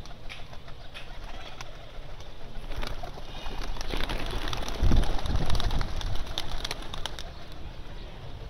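A flock of domestic pigeons cooing, with wings clapping and flapping close by. The flapping grows loudest around the middle, about five seconds in.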